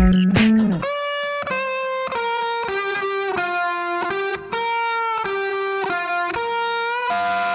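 Background music: a distorted electric guitar playing a single-note melody. The drums and bass drop out about a second in.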